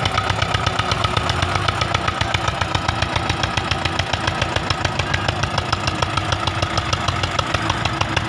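Eicher 242 tractor's single-cylinder diesel engine chugging with an even, rapid beat as it labours under load hauling a loaded trailer through sand.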